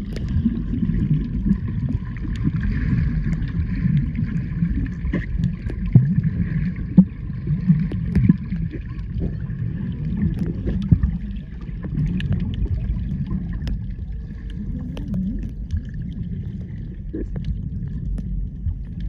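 Muffled underwater sound from a camera held below the surface: a low rumble of moving water with scattered sharp clicks and crackles, over a faint steady higher tone.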